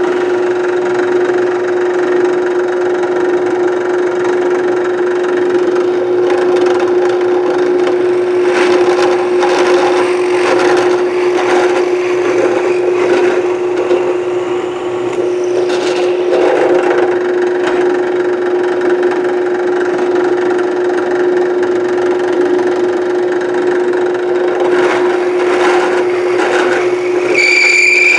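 Drill press running steadily, its bit boring holes through wood, with louder bursts of cutting noise several times. Near the end a high whine comes in, rising in pitch.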